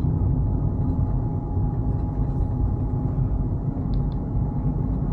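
Steady road and engine rumble inside the cabin of a Fiat 500 being driven.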